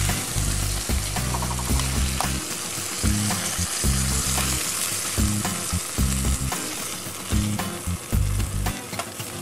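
Snapper fillets sizzling in hot oil in a skillet, a steady frying hiss, with a few sharp clicks and scrapes of a metal spatula against the pan as the fillets are lifted out.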